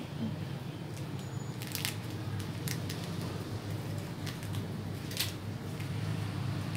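Steamed, cooled banana-leaf wrapper being unfolded by hand, giving a few short, crisp crackles of leaf over a steady low hum.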